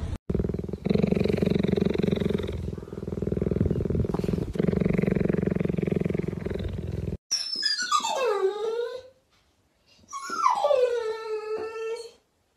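A cheetah purring steadily, in long pulses broken by breaths. Then a dog gives two drawn-out whines, each sliding down in pitch.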